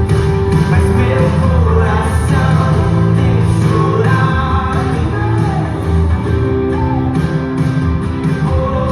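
Contemporary Christian worship song playing: a voice singing over a full band with guitar.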